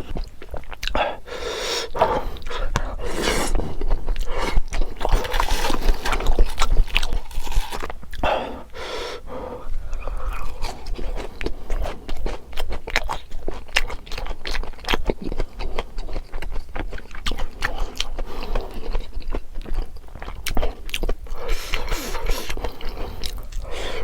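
Close-miked chewing and biting of food, with many short wet mouth clicks and a few longer stretches of louder eating sounds.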